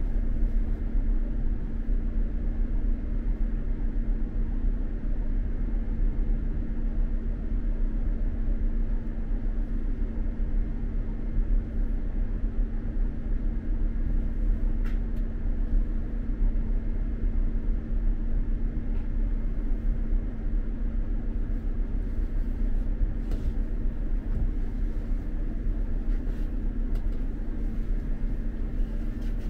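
SJ X2000 high-speed train running, heard from inside the carriage: a steady rumble with a constant low hum, and a few faint ticks.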